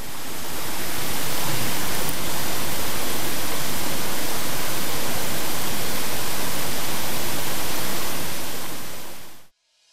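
Steady rushing of a cascading waterfall, fading in at the start and fading out near the end.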